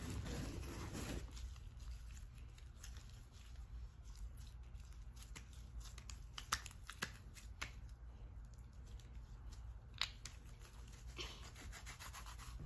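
Sticky blue slime mixed with Play-Doh being kneaded and pulled by hand: faint squishing with scattered small sticky clicks and pops, busier near the start and again near the end.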